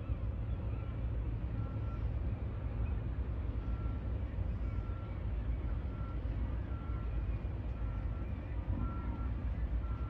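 A vehicle's backup alarm beeping steadily at a regular pace, a short single-pitched beep repeating about once a second, over a steady low rumble.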